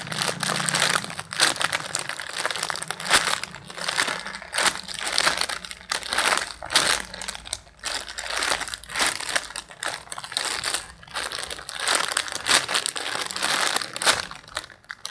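A badly cracked alpaca-lamp squishy toy being squeezed over and over, giving repeated crinkling, crushing noises about once a second.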